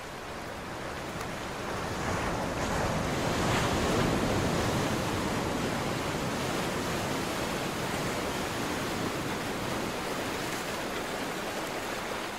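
Ocean surf sound effect: a steady rushing of waves that swells about three to four seconds in, then eases back a little and runs on evenly.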